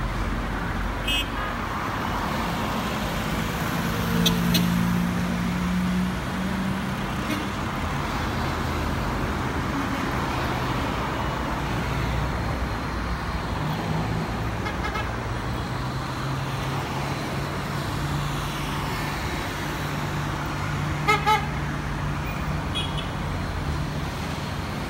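Steady street traffic noise with car horns tooting briefly several times. The loudest toots come about four seconds in and as a quick double toot near the end.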